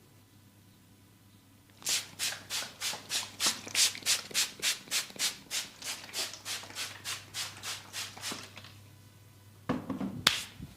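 Massage strokes: hands rubbing rhythmically over skin, about three and a half strokes a second. The strokes start about two seconds in and stop about nine seconds in, with a couple of louder rubs near the end.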